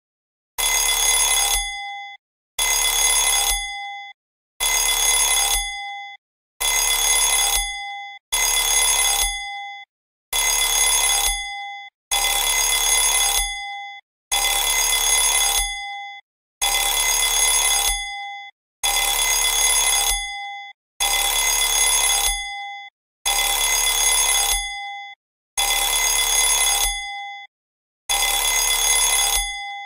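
Mobile phone sounding a bell-like ring: rings of about a second and a half that repeat every two seconds, each fading out at its end.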